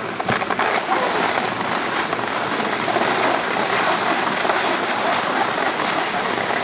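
Steady hiss of skis sliding over snow while skiing downhill.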